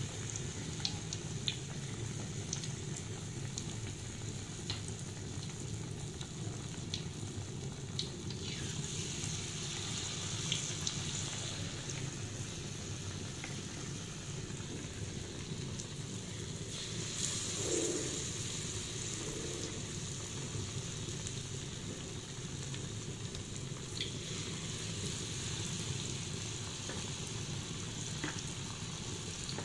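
Batter-coated tempe gembus slices deep-frying in a wok of hot oil: a steady sizzle with scattered sharp pops, swelling briefly louder about seventeen seconds in.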